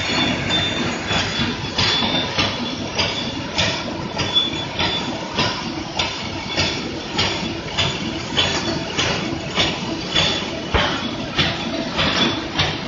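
Fully automatic airline cutlery and napkin packing machine running at speed: a steady mechanical clatter with a regular clack a little under twice a second as the machine cycles.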